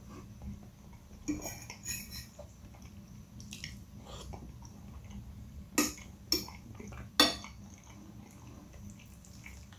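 Metal fork clinking and scraping against a glass plate, with a few faint clinks early and three sharper clinks a little past halfway, the last the loudest. Soft chewing of noodles in between.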